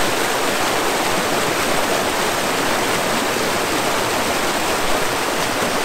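Small forest stream rushing over boulders in little cascades: a steady, unbroken rush of white water.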